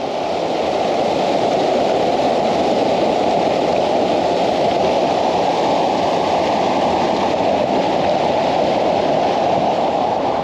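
Loud, steady rush of flowing river water.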